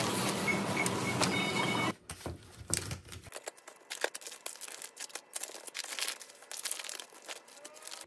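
Crinkling and rustling handling noise with many small clicks, after a louder busy stretch of background noise that cuts off sharply about two seconds in.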